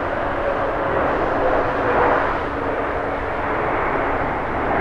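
Japan Airlines Boeing 777-300ER's GE90 jet engines during touchdown and rollout: a steady jet rush with a faint tone falling slowly in pitch. It is loudest about two seconds in.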